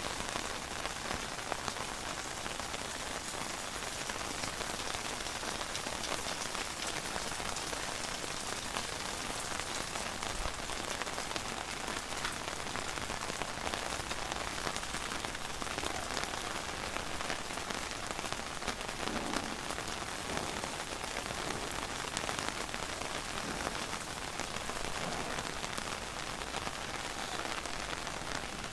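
Steady rain falling on a surface, a dense even patter of drops.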